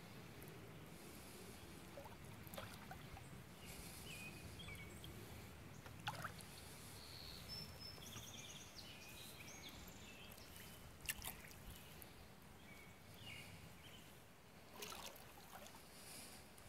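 Quiet canoe paddling: water dripping and trickling off the Grey Owl Guide paddle, with a couple of sharp light clicks. Faint high bird chirps come in briefly near the middle.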